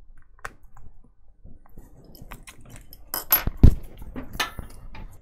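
Scattered small clicks and clinks of an iPhone X being handled as its screen assembly is pressed onto a test housing and the phone is set down on a silicone work mat, with a cluster of sharper clicks and one knock about three and a half seconds in.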